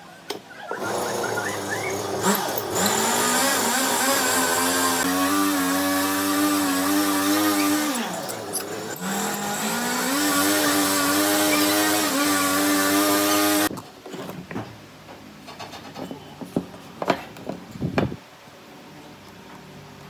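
Electric power tool motor running on wood: its whine climbs in pitch, drops briefly about halfway through and climbs again over a loud hiss, then cuts off suddenly. A few light knocks follow.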